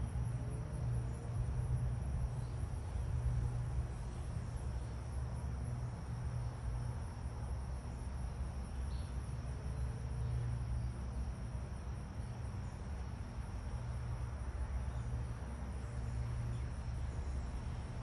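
Insects trilling steadily in a thin, high, unbroken tone over a louder, uneven low rumble.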